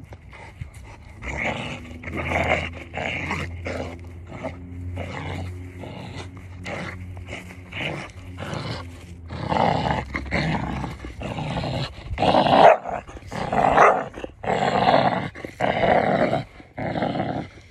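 Pit bull growling as it tugs on a rope toy held in its jaws: a steady low growl at first, turning to louder, shorter growling bursts about halfway through.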